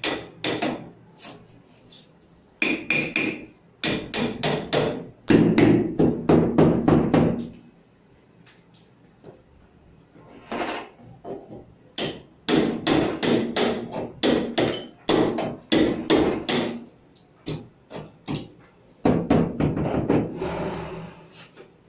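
Repeated hammer blows during refrigerator repair work, struck several times a second in bursts separated by short pauses.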